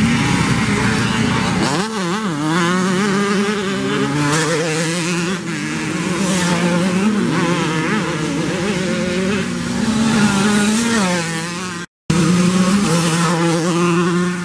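Several youth dirt bike engines revving hard as they race past, pitch climbing and dropping again and again with throttle and gear changes. The sound cuts out for a moment near the end.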